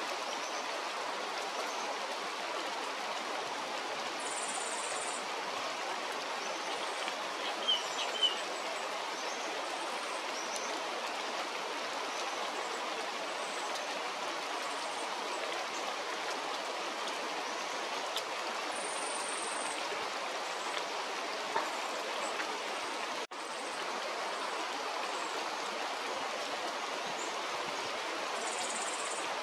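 Steady rushing of running water, like a stream, with a few brief high-pitched buzzing notes over it and two short sharp chirps about eight seconds in.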